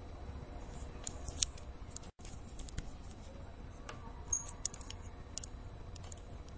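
Recording background in a pause between spoken phrases: a steady low hum and faint hiss with scattered small clicks, and a brief dropout to silence about two seconds in.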